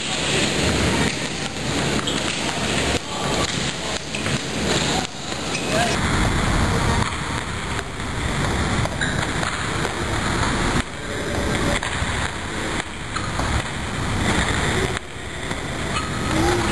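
Table tennis rally: the ball clicks off paddles and table again and again under a loud, steady rushing noise in the hall.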